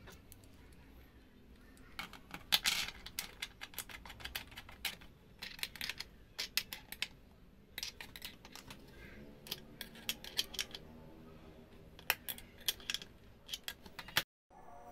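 Irregular small clicks and clinks of a small open-end wrench and metal bolts being handled on a wooden drill-press jig, starting about two seconds in.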